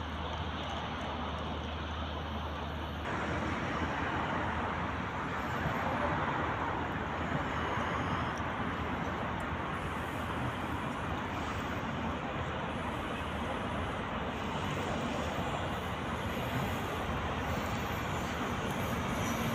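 Steady road traffic noise, a little louder from about three seconds in.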